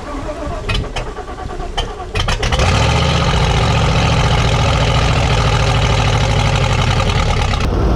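Chevy small-block V8 sputtering unevenly on the starter, then catching about two seconds in and running loud and steady. It is a first start after ten years of sitting, on fuel primed down the carburettor barrels and starter fluid.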